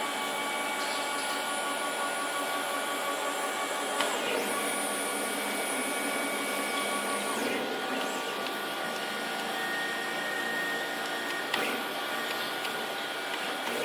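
CNC engraving machine's axis stepper motors whining steadily as the head is jogged. The pitch changes a few times as one move ends and the next begins.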